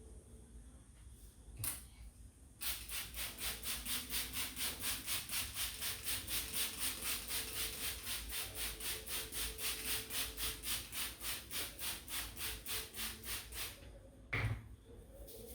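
Hands rubbing briskly back and forth over the hair and scalp in a barber's head massage, an even rhythm of about four strokes a second that starts a few seconds in and stops near the end. A single click comes shortly before the rubbing, and a short thump follows it near the end.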